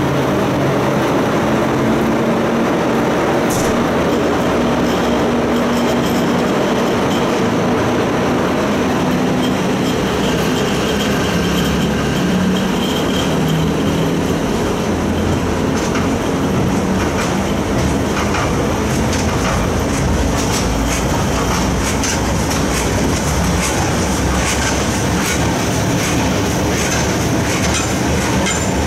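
Loaded flat wagons of a slow freight train rolling past on steel rails: a steady rumble of wheels with clicking over rail joints, more frequent in the second half. There is a faint high wheel squeal for a few seconds near the middle.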